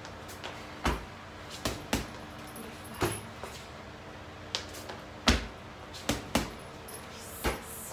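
Boxing-glove punches landing on a hanging Everlast heavy bag: about nine thuds at an uneven pace, some in quick pairs.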